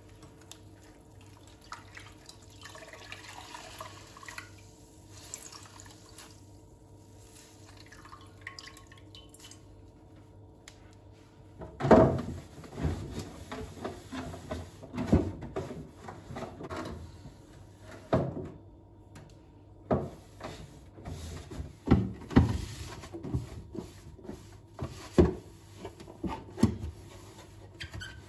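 Kitchen work at a sink: running water and handling, faint at first, then from about twelve seconds in a string of irregular knocks and clatters of things being set down and moved about, the first of them the loudest.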